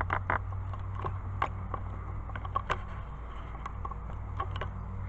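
A camera being handled and repositioned: scattered light clicks and knocks from the camera and its mount, over a steady low hum.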